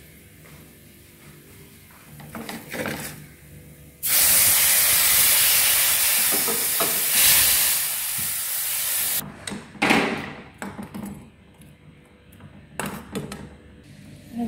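Small fish frying in hot oil in a metal pan, giving a loud hissing sizzle that starts suddenly about four seconds in and cuts off about five seconds later. A metal spoon scrapes and knocks against the pan before and after the sizzle.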